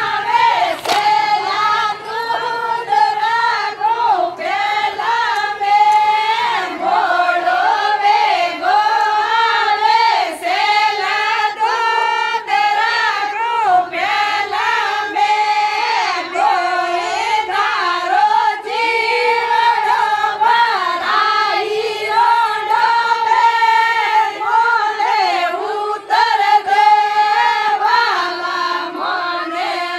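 A group of women singing a Marwari Fagan (Holi) folk song together in one melody line, the song running on without a break.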